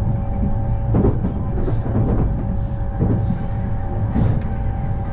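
Inside a moving electric limited express train: a steady low rumble of wheels running on the rails, with a constant hum and soft knocks about once a second.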